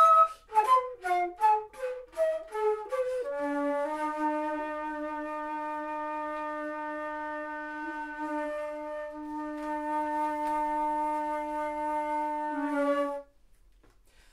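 A flute trio on wooden keyed flutes plays a fast run of short, detached notes, then holds one long closing note for about ten seconds. It ends a section of the music and cuts off sharply near the end.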